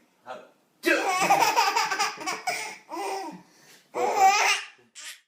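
A baby laughing in several bursts: a long run of laughter starting about a second in, then shorter bursts.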